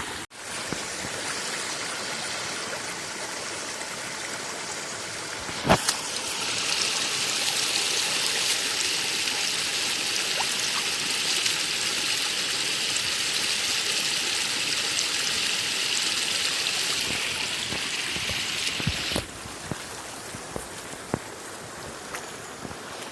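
Flowing water rushing and trickling steadily, with a brighter, louder hiss from about six seconds in until about nineteen seconds.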